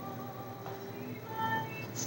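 Music playing in the background, with held tones and a few short, brighter high notes about one and a half seconds in.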